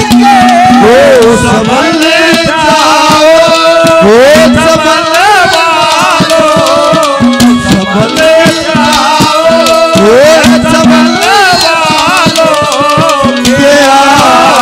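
Haryanvi ragni folk music: a hand drum beating under a sliding, ornamented lead melody, with a short low held note coming back again and again.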